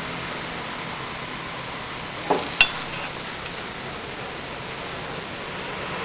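Steady background hiss with two quick knocks about two seconds in, a third of a second apart, the second a small ringing clink like hard china or glass being tapped.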